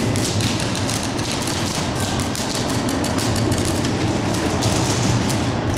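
Scattered airsoft gunfire and BB impacts in a large warehouse hall, heard as irregular sharp clicks and taps over a steady low hum.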